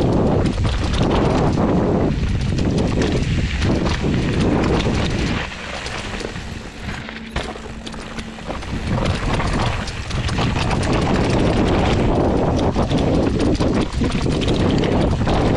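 Hardtail mountain bike descending a dirt singletrack: tyres rolling over dirt and leaves, with the bike rattling and knocking over bumps and wind rushing over the microphone. About halfway through it eases into a quieter stretch for a few seconds, then picks up again.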